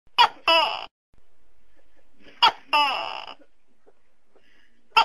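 Tokay gecko calling its 'to-kek' call twice, about two seconds apart. Each call is a short sharp note followed by a longer note falling in pitch. A third call begins right at the end.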